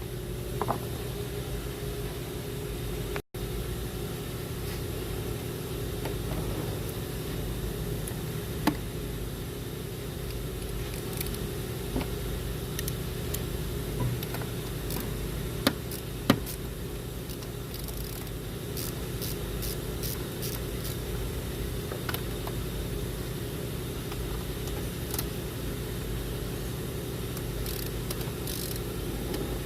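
Ratchet and 10 mm socket working the throttle body's bolts loose: scattered sharp clicks and taps, busier in the second half, over a steady low hum.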